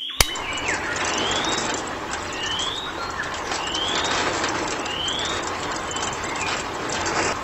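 A bird repeats a short rising call four times, about a second apart, over a steady rushing noise. A sharp click comes just at the start.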